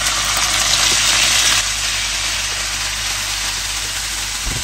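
Chunks of raw mutton sizzling as they are dropped into hot oil in a frying pan. The sizzle is loudest for the first second and a half, then settles to a slightly lower steady hiss.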